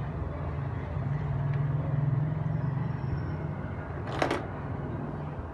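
Steady low background rumble that swells about a second in and eases after two and a half seconds, with a brief scrape about four seconds in.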